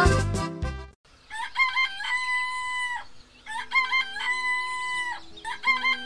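Rooster crowing cock-a-doodle-doo twice, each a long held call of about a second and a half, with a third crow starting near the end. Before the first crow, loud bouncy children's music cuts off about a second in, and soft held music notes sit under the later crows.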